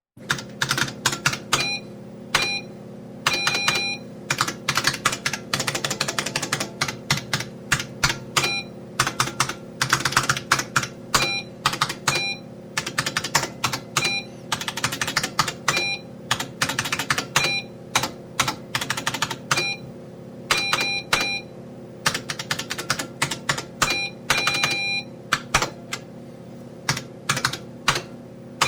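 Computer keyboard typing in quick runs of key clicks, broken by short electronic beeps that come singly or in pairs every few seconds, over a steady low hum.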